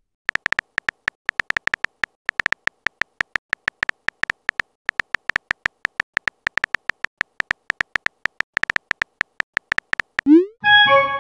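Phone keyboard key-tap sounds: rapid, uneven clicks, several a second, as a chat message is typed. Near the end a rising swoosh and a short chime of several tones sound as the message is sent.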